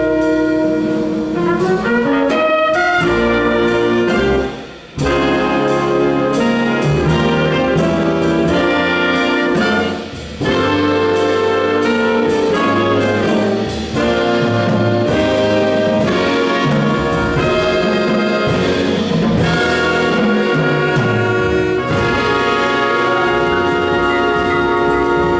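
Big band jazz orchestra playing, with saxophones, trumpets and trombones over the rhythm section. The full band cuts off briefly about five seconds in and again about ten seconds in, then plays on.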